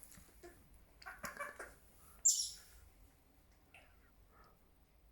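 Senegal parrot (youyou) calling: a few soft chattering notes about a second in, then one short, shrill high squawk just after two seconds.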